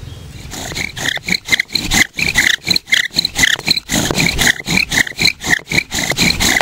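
A wooden bow drill spindle squeaking in its fireboard hole as the bow is sawn rapidly back and forth, one squeak with each stroke, several a second, starting about half a second in. The squeaking comes from a large patch of resin in the wood.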